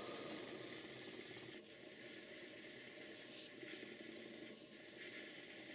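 Basil Harley-designed twin oscillating-cylinder model steam engine running on steam: a steady hiss of steam and exhaust that cuts out briefly twice, about one and a half seconds in and about four and a half seconds in, as the combined regulator and reversing lever is worked. The lever is a bit leaky and needs lapping to its port face.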